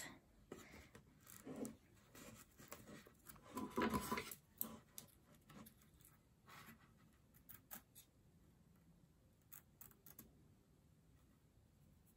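Faint, irregular snips of small scissors cutting the lace off a wig, with light rustling as the hair and lace are handled; a slightly louder patch of handling noise comes about four seconds in.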